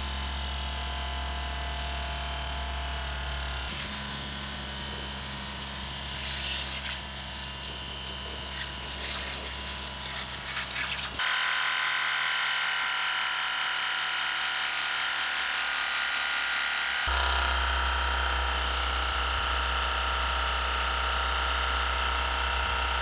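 Background music with a steady buzzing drone. The sound changes abruptly three times, then cuts off sharply at the end.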